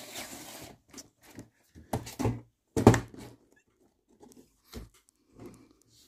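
Cardboard advent calendar box being handled and turned around, with a few sharp knocks and bumps against the table, the loudest about three seconds in.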